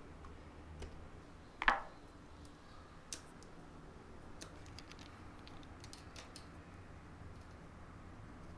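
Scattered light clicks and taps of small hard objects being handled, with one sharper knock a little under two seconds in and another about three seconds in.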